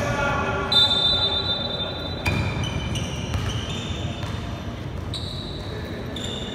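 Indoor basketball game in an echoing gym: a basketball bouncing on the wooden court, with several short high squeaks.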